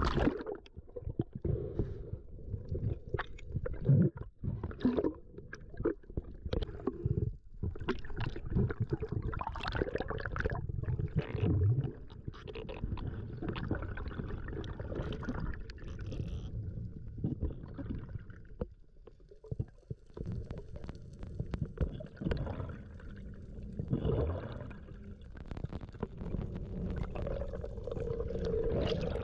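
Water gurgling and sloshing around the camera, with a low rumble and many scattered clicks and knocks.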